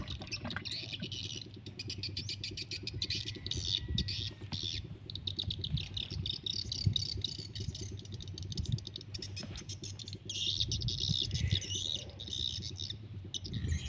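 A small engine running steadily with a fast, even pulse, with birds chirping over it.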